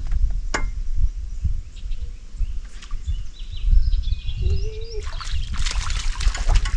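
A hooked fish splashing and thrashing at the water's surface as it is reeled in, starting about five seconds in. Before that, birds chirp in the background.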